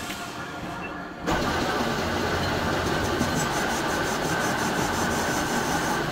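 Metal lathe switched on about a second in, then running steadily with its chuck spinning a steel gear, a mechanical rumble with a thin steady whine over it.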